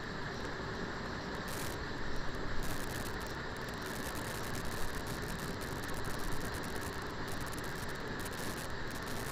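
Marinated liver pieces frying in hot oil in a kadai: a steady sizzle, with a few louder crackles about two seconds in and again near five and six seconds.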